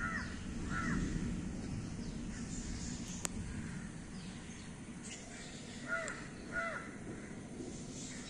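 A bird calling in the background: two short calls at the start and two more about six seconds in, over a steady low background noise, with a single sharp click about three seconds in.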